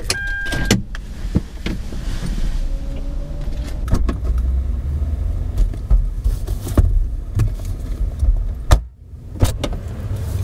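Car door clunks and handling noises as the rear door of a parked car is opened and things are reached for on the back seat, with several sharp knocks and clicks over a low steady rumble.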